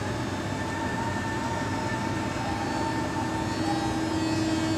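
EP20 electric locomotive starting to pull out with a passenger train: a steady running noise with several held whining tones, a low one growing stronger about three and a half seconds in.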